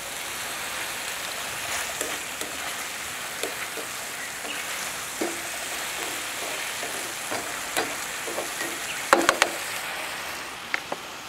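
Chunks of meat and sliced onions sizzling steadily as they dry-fry over high heat in a steel wok. A few short clicks and scrapes of a slotted spatula against the pan come through, most of them around nine seconds in.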